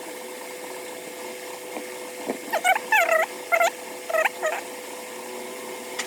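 A cat meowing about five or six short times in quick succession, each call bending up then down in pitch. Under it runs a steady hum.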